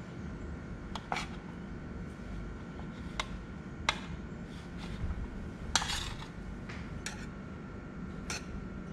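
Steel spoon clinking and scraping against a stainless steel thali plate and small steel bowls as idli is cut and dipped. About half a dozen sharp clinks come a second or so apart, with one longer scrape near the middle, over a steady low background hum.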